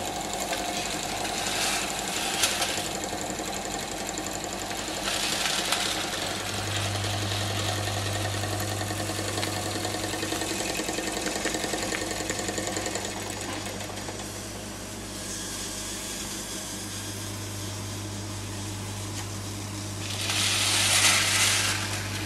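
Wilesco D45 toy steam engine running steadily, with a fast, even mechanical beat and a low hum. Steam hiss swells up a few times, loudest near the end.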